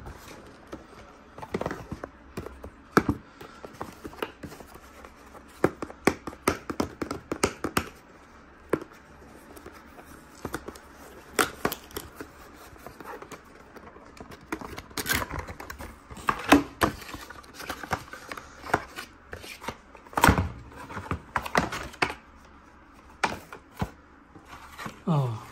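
Packaging handled and opened by hand: a cardboard retail box and its clear plastic seal sticker peeled off, giving irregular crackles, taps, scrapes and small knocks.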